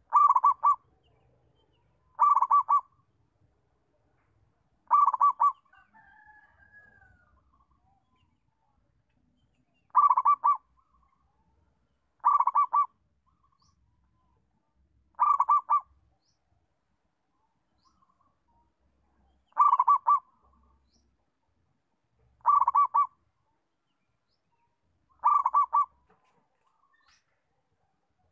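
Zebra dove cooing: nine short bursts of rapid staccato notes, each about half a second long, repeated every few seconds.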